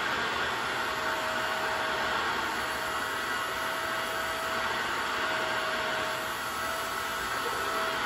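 Stick vacuum cleaner running steadily with the end of its wand held in a head of long hair, sucking the hair up into the tube. A continuous rush of air with a faint steady tone in it.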